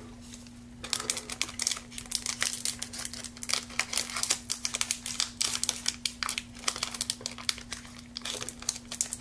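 A foil-and-plastic trading-card booster pack wrapper crinkling and crackling as gloved hands handle it, starting about a second in, over a faint steady hum.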